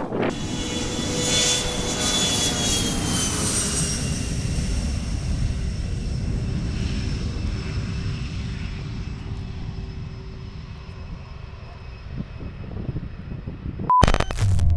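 Jet aircraft engines whining over a low rumble as the plane passes. The whine drops in pitch a few seconds in, then slowly fades away. Near the end a short beep is followed by a sudden loud cut to another sound.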